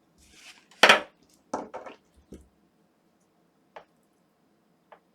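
Small hard objects being handled on a workbench: one sharp knock about a second in, a few lighter knocks shortly after, then two faint clicks near the end.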